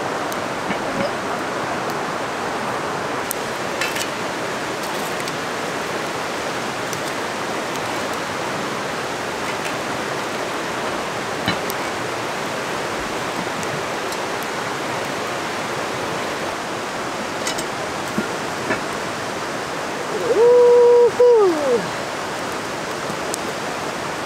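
Steady rushing of a rocky river running close by, with a few faint clicks. About twenty seconds in, a loud held tone lasts around a second and a half and slides down in pitch at the end.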